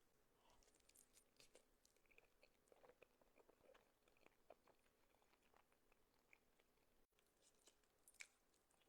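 Faint close-up chewing of cheesy carbonara Buldak ramen noodles: many soft, wet mouth clicks and smacks, with one sharper click near the end.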